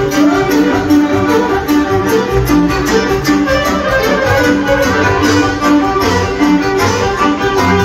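Live Serbian folk band playing a kolo dance tune, with a steady beat.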